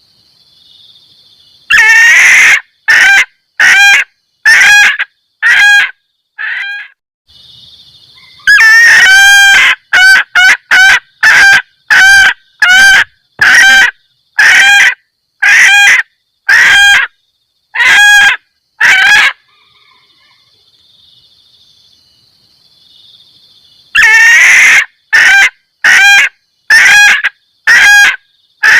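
Female junglefowl cackling loudly: three runs of short, sharp repeated calls at about one a second, each run opening with a longer gliding call. It is a hen's mating cackle played as a lure to call in males.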